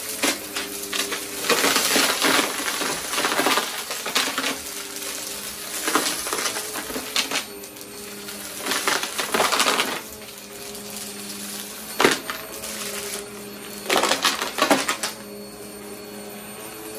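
Bagless upright vacuum cleaner running over carpet with a steady motor hum, sucking up coins and small debris that clatter and rattle through it in several loud spells, the loudest about a second and a half, six, nine, twelve and fourteen seconds in.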